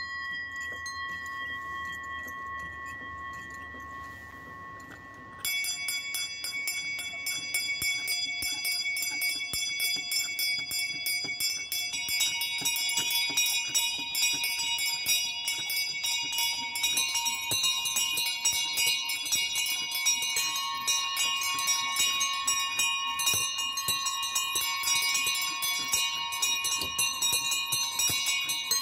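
A set of four small swinging bells tuned to f''', b''', c'''' and d-flat'''' is rung by rope. A single bell's ring dies away, then about five seconds in a full peal starts abruptly with the bells striking in quick succession, and more of them join in about twelve seconds in.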